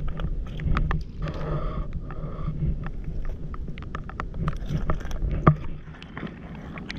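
Footsteps of rubber boots over wet stones and shingle, with irregular clicks of stones knocking together and one sharper knock about five and a half seconds in, over a low steady rumble.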